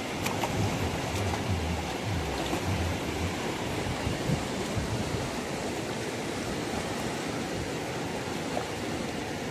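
River water rushing steadily, with a few soft low knocks in the first three seconds.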